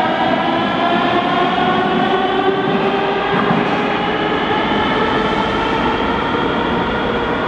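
Metrovagonmash Rusich metro train pulling out of the station: its traction drive gives a whine of several tones over the rumble of the wheels, easing off a little as the train moves away.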